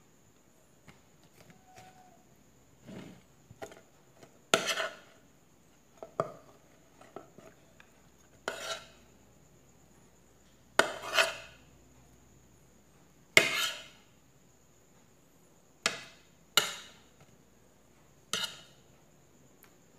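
Metal spoon knocking and scraping against a plate as food is pushed around on it: about a dozen separate clinks and short scrapes at irregular intervals, some with a brief ring.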